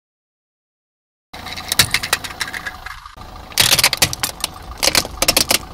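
Car tyre rolling slowly over gravelly asphalt with the engine idling, crushing a plastic toy auto-rickshaw. After about a second of silence the tyre and engine come in with scattered crackles, then from about three and a half seconds in a dense run of sharp plastic cracks and snaps as the toy breaks.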